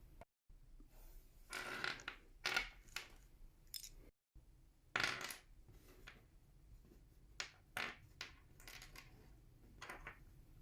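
Kinder Surprise egg and its plastic toy capsule being handled and opened: a series of short, light clicks, clatters and rustles at irregular intervals, broken by two brief dropouts to silence.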